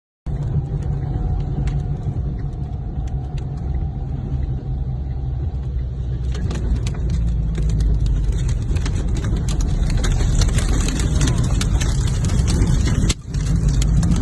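Storm wind rumbling loudly against the microphone, with many sharp clicks and rattles from about six seconds in. The sound drops out briefly about a second before the end.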